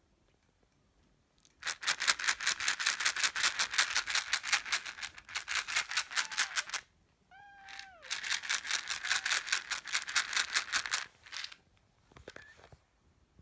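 A fast, even rasping rattle, about six strokes a second, in two long runs; in the gap between them, about seven seconds in, a kitten mews once with a falling pitch.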